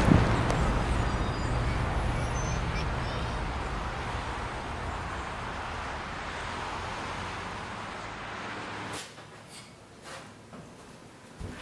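Vehicle noise with a low engine hum fading away over about nine seconds, as of a car or bus moving off. It cuts to a quieter background with a few light knocks.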